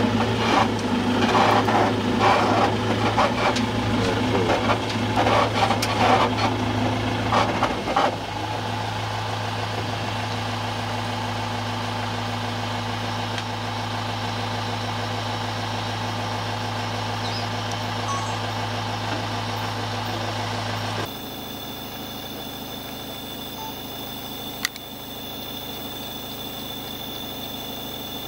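Safari jeep's engine idling steadily while the vehicle stands still, with irregular louder noise over it for the first eight seconds. About three-quarters of the way through, the engine sound abruptly becomes quieter and a steady high-pitched tone runs over it.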